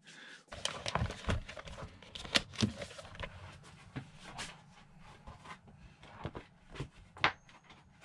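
A new Hutchinson Python folding mountain-bike tyre being unfolded and flexed by hand: irregular rustling and light knocks of rubber and bead, with one sharper knock about seven seconds in.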